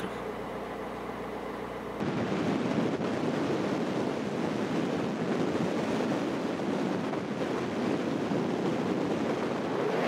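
Chevrolet Niva on the move: a steady engine hum inside the cabin, then, about two seconds in, a sudden switch to a louder, even rush of wind and road noise.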